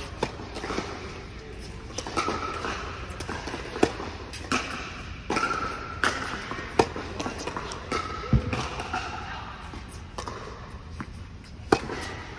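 Tennis rally on an indoor hard court: sharp racket strikes and ball bounces every second or two, one of the loudest hits coming near the end.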